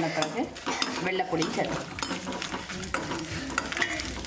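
Metal ladle stirring and scraping in an aluminium kadai while dried red chillies, green chillies, garlic and curry leaves fry and sizzle in hot oil, with quick scraping clicks throughout.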